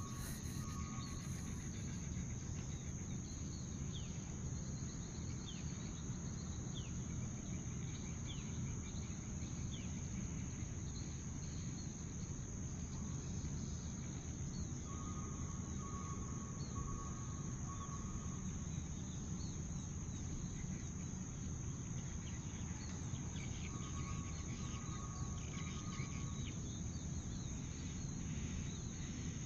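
Steady high-pitched chirring of crickets, over a low rumble, with scattered short bird chirps. Two short runs of rapid repeated notes come about halfway through and again near the end.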